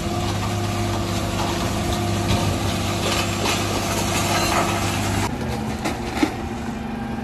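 Dennis Elite 6 refuse truck's diesel engine running steadily to power the Terberg bin lifter as it tips a wheelie bin into the rear hopper, with knocks and rattles of recycling falling in. About five seconds in, the engine settles to a different, lower steady note.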